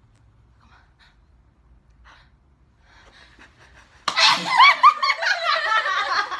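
A person sneezing, breaking in suddenly about four seconds in, followed by a run of short, high-pitched laughs.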